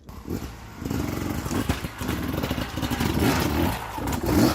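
Beta 300RR two-stroke dirt bike engine revving up and down several times as it is ridden over a log obstacle.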